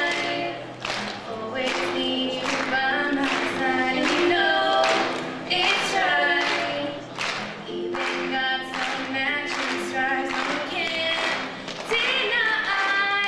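Two young female voices singing a song together, accompanied by a strummed acoustic guitar and ukulele.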